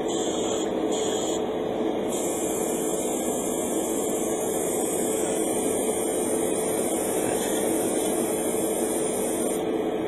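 A spray booth's extractor fan runs steadily with a constant hum, while an airbrush hisses: three short test bursts, then a long continuous spray from about two seconds in until just before the end. The paint had been too thick to go through the airbrush and was thinned just before.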